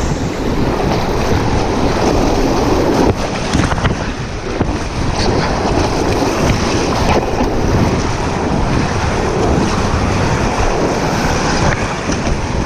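Whitewater rushing and splashing around an inflatable kayak, a steady loud wash with wind buffeting the camera microphone.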